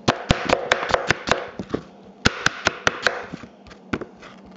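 Kitchen knife chopping an onion on a cutting board: a quick run of knocks about five a second, a pause, a second short run, then two single knocks near the end.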